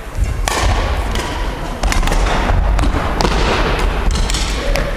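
Badminton play echoing in a gym hall: a string of sharp racket hits on the shuttlecock and thuds of footsteps on the wooden court, over a steady low rumble.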